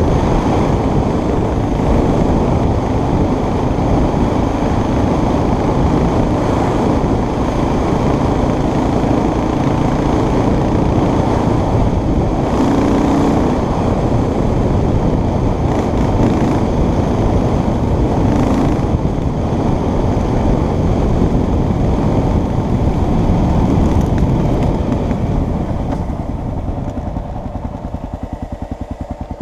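Engine and wind noise of a vehicle riding fast on a dirt road, loud and steady. Near the end it slows and settles into an even, pulsing idle.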